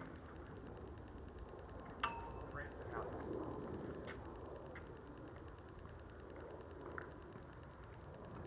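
Lug-sail rigging on a small sailing skiff being hoisted: a single sharp metallic clink about two seconds in that rings briefly, then soft rustling of line and sail. Faint high chirps repeat about twice a second.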